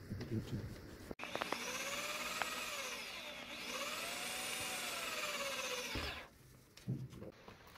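Hand-held electric drill boring a hole through a thin flat top board: the motor whines for about five seconds, its pitch sagging in the middle and rising again, then it stops.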